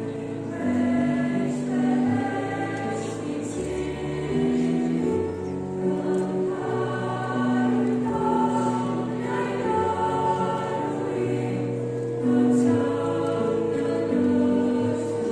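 Mixed youth choir of women and men singing a hymn in several parts, in long sustained notes that move together every second or so, with one note held through the last few seconds.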